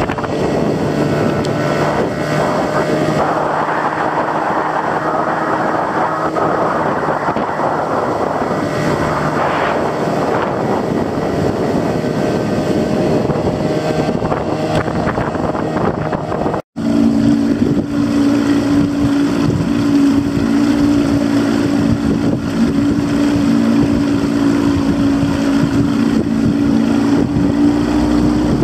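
Outboard motor running steadily as a Lund fishing boat travels under way, with the rush of wind and water. About 17 seconds in, the sound drops out for an instant, and then the motor's hum is stronger and steadier.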